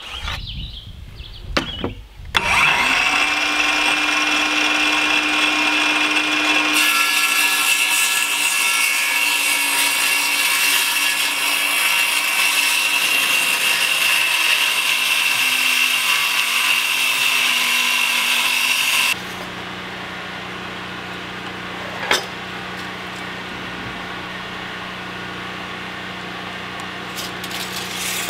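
Ridgid 18V cordless circular saw starting up about two seconds in and cutting through plywood, a loud steady whine that runs for about seventeen seconds. It then gives way abruptly to a quieter steady hum, with a single knock partway through.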